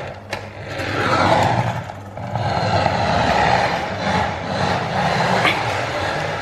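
Small electric motor of a remote-controlled toy car running as the car drives over a wooden floor, dipping briefly about two seconds in.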